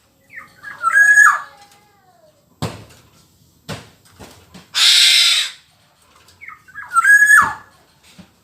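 Black-naped oriole calling. A short call of fluty whistles with a nasal slur comes about a second in and again near the end. Between them comes one loud, harsh, rasping call, with a few sharp clicks before it.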